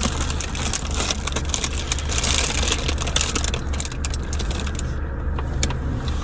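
Steady low rumble of a car's interior, with dense crackling and rustling handling noise over the first few seconds that thins out toward the end.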